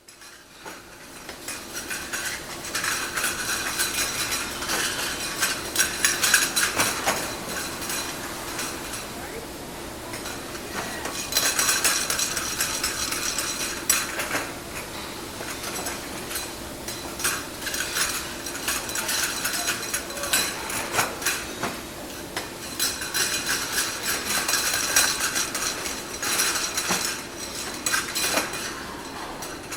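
China ware (porcelain crockery) clinking and clattering continuously as pieces are handled and checked for faults, with many irregular light knocks and clinks. A steady low hum runs underneath.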